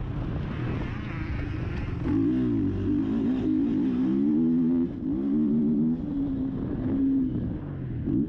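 KTM motocross bike's engine heard up close while being ridden, revving up and easing off again and again, its pitch rising and falling with the throttle. The throttle is chopped briefly a few times in the second half.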